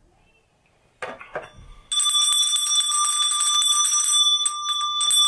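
Small brass handbell rung rapidly and continuously, starting about two seconds in after a moment of handling noise as it is picked up.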